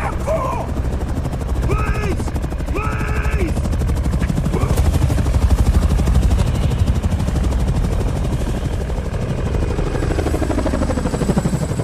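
Large transport helicopter's rotor beating fast and heavy close by as it lifts off and climbs away, a little louder in the middle.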